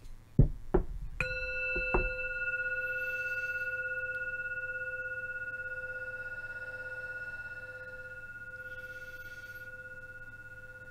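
Metal singing bowl struck with a wooden striker about a second in, after a few knocks as it is handled. It rings with a steady hum and higher overtones that fade slowly, pulsing slightly.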